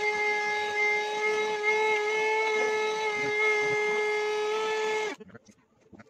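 Vacuum cleaner running through a crevice nozzle: a steady high whistling whine over a rush of air. It cuts off suddenly about five seconds in.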